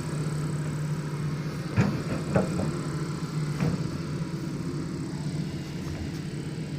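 Diesel engine of a heavy earthmoving machine running steadily, with two sharp knocks about two seconds in and a lighter one a second later.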